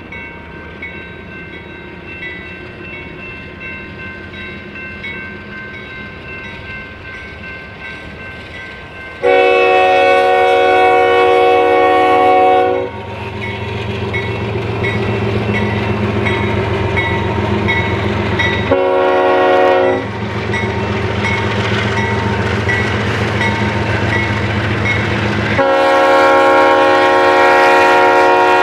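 Freight train's diesel locomotive sounding its air horn as the train rolls slowly: a long blast about nine seconds in, a short one near twenty seconds, and another long blast near the end. Between the blasts the low rumble of the engines and rolling cars grows louder.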